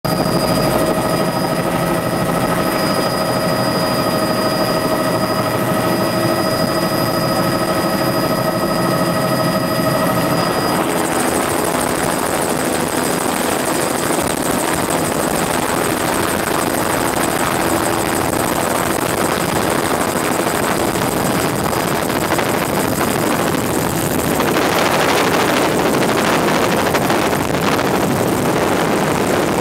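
Helicopter turbine engine and rotor heard from inside the cabin. For about the first ten seconds it is a steady whine with several held tones. It then turns into a fuller rushing noise as power comes up for lift-off, growing louder again near the end as it climbs.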